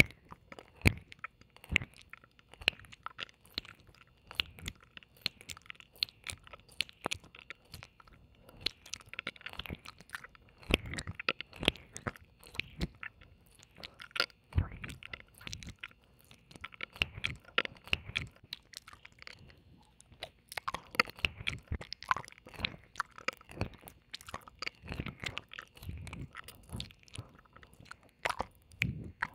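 Close-miked ASMR ear licking and mouth sounds: a dense, irregular run of wet clicks, smacks and licks.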